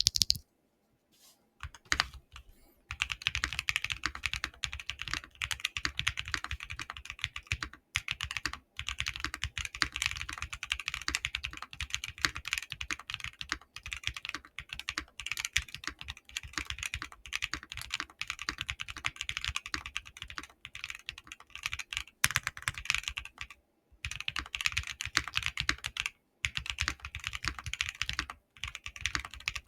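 Fast continuous typing on a Mode SixtyFive mechanical keyboard with hand-lubed Keygeek Y2 linear switches, a POM plate and GMK Cherry-profile keycaps: a deep, creamy keystroke sound with no clack. The typing starts a couple of seconds in after a few lone keypresses and pauses briefly a few times.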